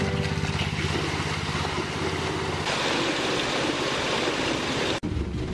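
Water gushing from a delivery hose down into a dug well, over a steady low mechanical hum. About two-thirds of the way through the hiss of the falling water grows louder and the hum fades, and near the end the sound cuts off abruptly.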